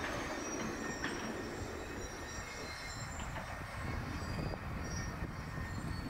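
Steady low rumble of distant traffic, with faint thin high-pitched squeals scattered through it.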